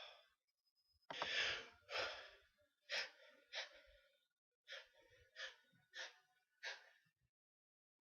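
A person breathing in short, sharp gasps between sneezes, about eight breaths in all; the first two are the longest and loudest. These are the catching breaths of an ongoing sneezing fit.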